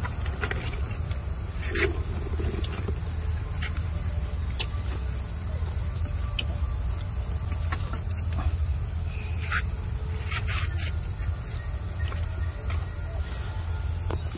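A steady, high-pitched drone of insects chirring in the undergrowth, over a low rumble. A few short clicks sound through it, the sharpest about four and a half seconds in.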